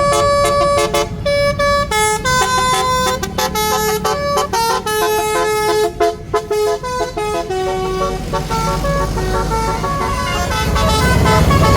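A tour bus's basuri telolet horn playing a tune of quick, stepped notes that stop and start, over a steady low rumble. From about two-thirds of the way in, the notes are held longer.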